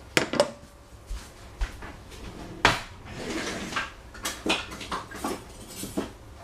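A string of separate knocks and clatters of kitchen things being handled, the loudest just after the start and about two and a half seconds in.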